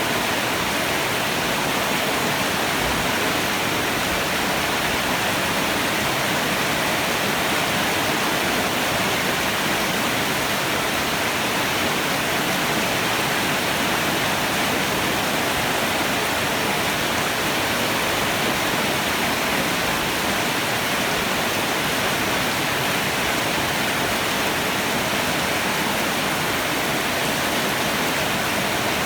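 Heavy rain falling steadily: a dense, even hiss with no let-up and no thunder.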